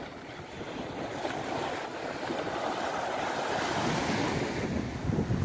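Mediterranean sea waves washing onto the shore, the rush of surf building gradually louder.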